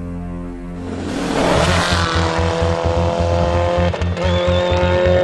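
Electronic music with a fast, regular pulsing bass and long held synth tones, with a rising whoosh about a second in.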